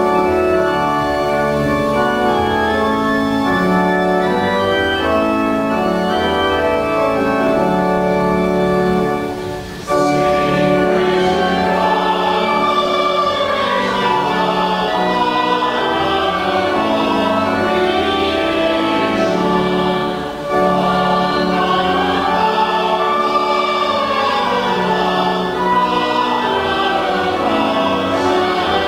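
Organ playing sustained chords, joined about ten seconds in by a flute playing a melody with vibrato over the held organ harmony.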